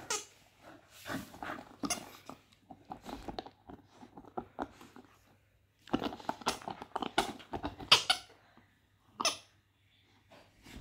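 Pomeranian chewing and mouthing a toy ball: irregular bursts of gnawing and snuffling noise, with a pause about halfway and the busiest stretch a little past the middle.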